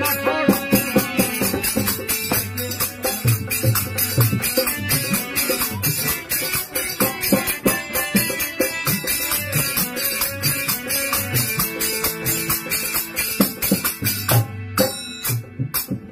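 Harmonium and dholak drum playing a fast instrumental passage of biraha folk music, with rapid, bright percussion strokes over held harmonium notes.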